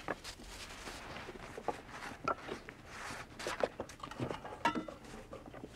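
Soft footsteps on sand, among scattered small clicks and knocks.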